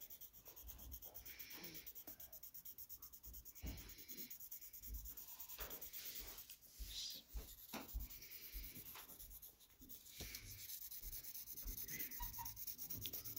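Pencil scratching on paper in many short, quick strokes, faint and rhythmic in places, as lines and shading are drawn.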